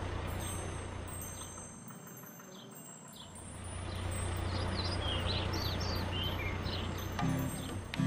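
Cartoon truck engine sound effect, a steady low rumble that fades about two seconds in and comes back a second later, with short bird chirps over it. A music jingle starts near the end.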